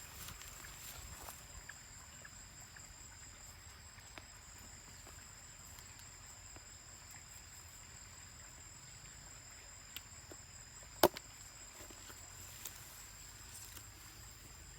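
Insects trilling steadily at a high pitch, with one sharp click late on.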